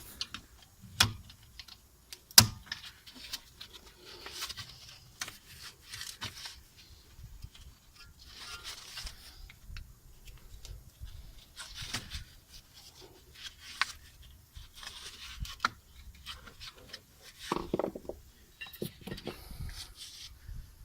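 Irregular clinks, scrapes and rustles of hand tools and metal brake parts being handled, with two sharp metallic knocks in the first few seconds.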